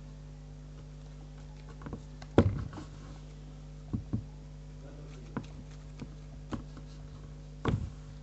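Hands working paper on a tabletop: scattered light knocks and taps, the loudest about two and a half seconds in and a quick pair about four seconds in, over a steady low hum.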